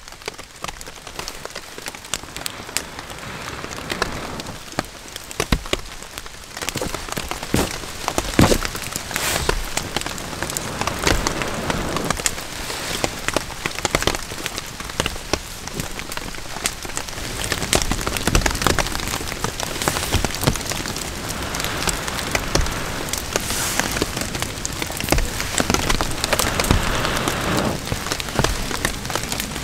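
Wood campfire crackling and popping, over a steady patter of rain.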